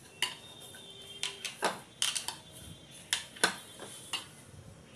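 Risen dough being kneaded by hand in a bowl: about ten irregular knocks and slaps as the dough is pressed and turned against the bowl.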